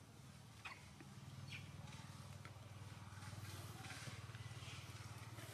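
Low, steady hum of an engine running, growing louder about a second in.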